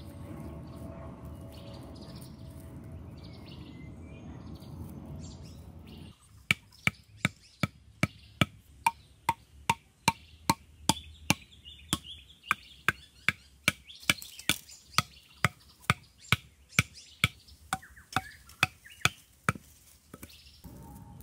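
A wooden club striking the tops of bamboo stakes, driving them into the ground: a steady run of sharp knocks, about two a second, starting about six seconds in and stopping shortly before the end.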